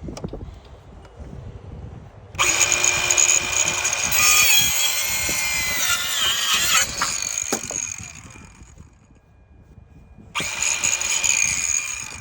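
Ryobi 18V One+ 4-1/2-inch cordless circular saw running in two bursts. The first lasts about five seconds, its whine wavering in pitch midway as it cuts, then winds down. A shorter run of about two seconds comes near the end.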